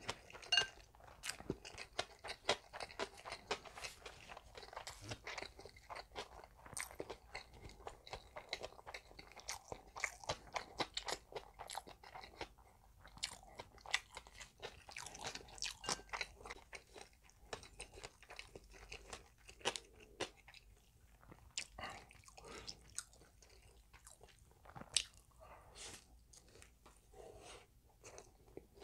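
Close-miked chewing of a mouthful of food: many small, irregular clicks and crunches from the mouth.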